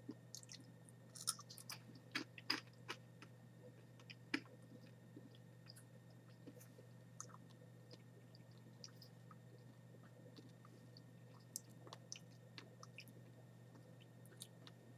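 Quiet chewing of dried red palm weevil larvae (sago worms): scattered small crunches and clicks, busiest in the first few seconds and again a little past the middle, over a faint steady low hum.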